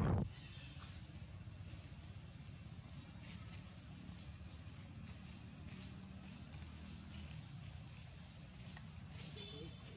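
Outdoor ambience under trees: a short high rising chirp repeats steadily about one and a half times a second over a low steady rumble. A brief thump sounds right at the start.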